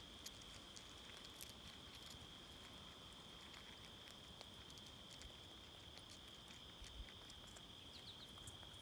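Faint small clicks and crackles of an eastern chipmunk husking and chewing sunflower seeds from a hand, over a steady high-pitched tone.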